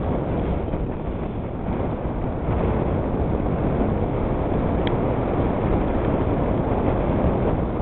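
Wind buffeting the camcorder's microphone: a steady, low rumbling rush that gets a little stronger about two and a half seconds in.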